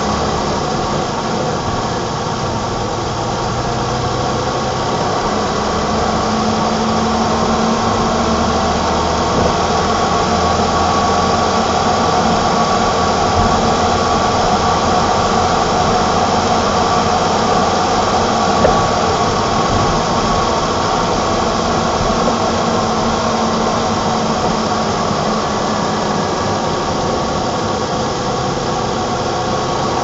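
BMW M20 2.0-litre straight-six of a 1987 E28 520i running at a fairly steady engine speed, a high-mileage engine (nearly 400,000 km) that runs well. One brief click a little past halfway.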